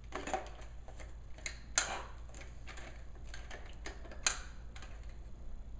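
Small plastic clicks and rattles of a Hess toy truck being handled as its batteries are fiddled with, with two sharper clicks about two and four seconds in.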